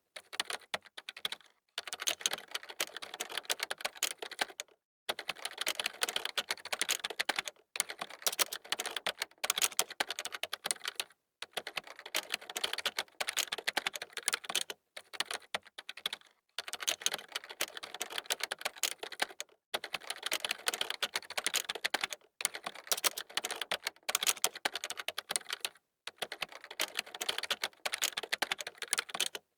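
Fast typing on a computer keyboard: rapid key clicks in runs of a few seconds, broken by brief pauses.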